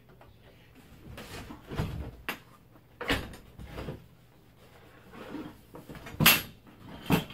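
Steel ammunition can being worked out of its crate frame and handled over a wooden floor: scrapes and a series of metallic knocks, the loudest a heavy knock about six seconds in.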